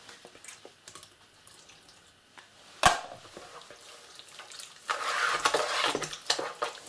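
Wire whisk stirring sour cherries into a thick, wet quark cheesecake batter in a plastic bowl, a wet squelching and splashing that sets in about five seconds in. A single sharp knock comes near three seconds.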